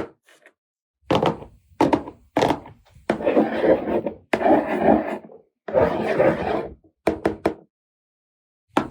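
Plastic toy pieces and packaging being handled on a tabletop: a run of knocks and longer clattering handling noises, with short silent gaps between them.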